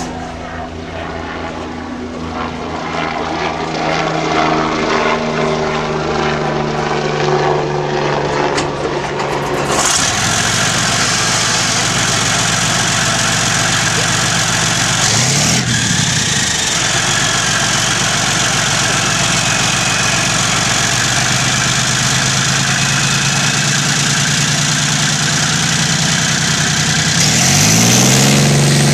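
Leopard 2 tank's V12 diesel starting: a steady hum for about ten seconds, then a sudden, fuller, louder running noise as it catches and runs on. It is revved up and back down briefly twice, about halfway through and again, loudest, near the end.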